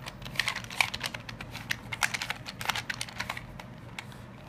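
Plastic Rubik's cube being twisted quickly by hand through a sequence of moves, its layers turning with a rapid run of sharp clicks and clacks that thins out near the end.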